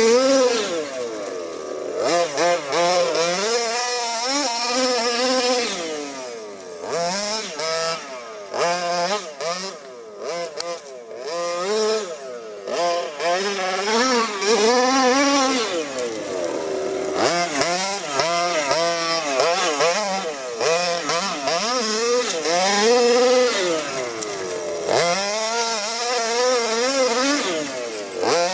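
HPI Baja 5T 1:5-scale RC car's 26 cc two-stroke gasoline engine with a Jet-Pro tuned pipe, revving up and dropping back over and over as the throttle is worked, with a few short lifts off the throttle.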